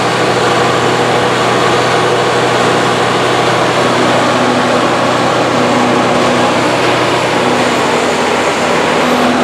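An engine running steadily: a constant drone with a low hum, unchanging in level and pitch.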